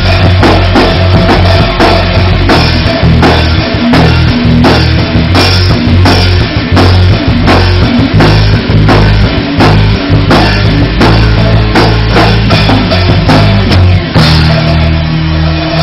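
A rock band playing an instrumental passage: a drum kit keeping a steady beat under electric guitars and bass, loud throughout.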